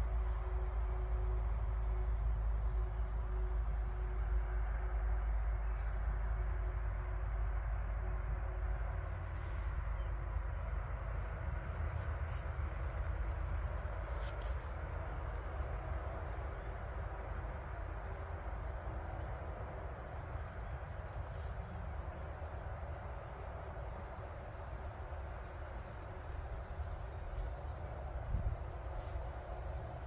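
Outdoor ambience: a steady low rumble of wind on the microphone, stronger at first and then easing, with faint high chirps from a small creature repeating every second or two.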